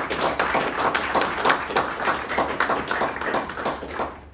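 Audience applauding, a dense run of handclaps that dies away about four seconds in.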